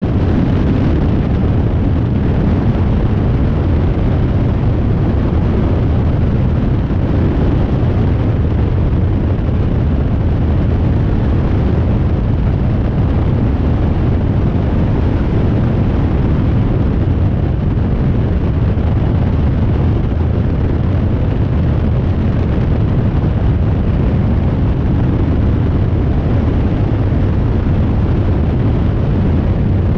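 Steady drone of a Rans Coyote ultralight's engine in cruising flight, mixed with rushing wind over a microphone mounted under the fuselage.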